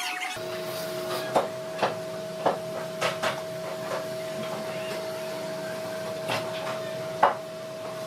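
Workshop machine running with a steady hum, with about seven sharp knocks, mostly in the first half, and the loudest knock near the end.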